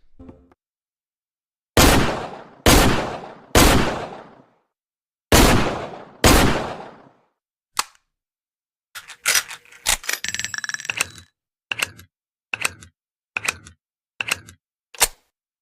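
Taurus Model 605 .357 Magnum revolver fired five times, each shot with a long fading tail. Then a run of metallic clicks and clinks, some briefly ringing, followed by five evenly spaced clicks of the revolver being handled.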